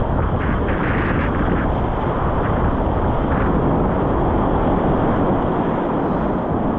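Loud, steady rush of whitewater on a river at a high-medium level, with a few short splashes in the first half.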